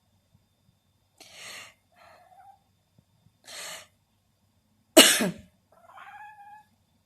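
A small pet coughing three times, the third cough much the loudest. Short, thin cries follow the first and last coughs.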